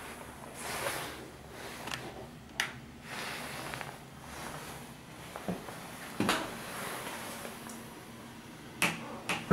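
Interior doors being handled and pushed open: rustling with a few sharp clicks and knocks from latches and door edges.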